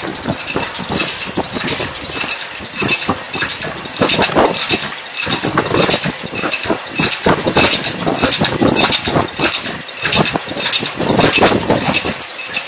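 High-speed paper cup forming machine running, its rotary turret and forming stations making a loud, continuous clatter of rapid clicks and knocks.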